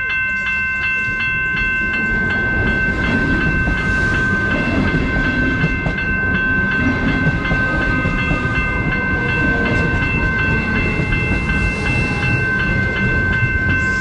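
Electric suburban train running through the station: a low rumble of wheels on the track under a steady high-pitched whine that holds throughout.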